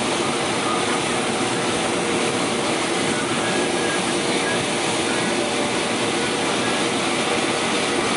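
Combine harvester running at work while its unloading auger pours shelled corn into a truck, heard from inside the cab: a dense, steady machine noise with a faint held hum through it.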